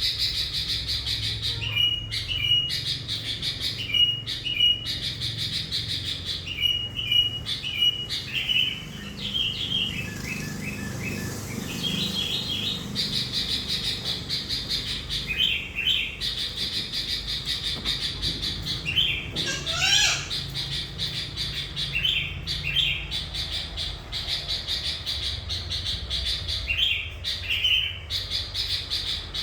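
Sooty-headed bulbul (kutilang) in full song, repeating short bright whistled phrases every second or two, with one longer sweeping call about two-thirds of the way through. A steady high-pitched buzz runs underneath and breaks off briefly now and then.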